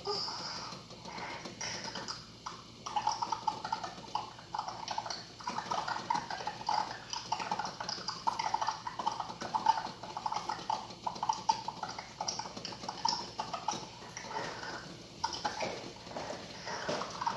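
Pot of eggs at a boil, rattling and knocking in quick, irregular taps.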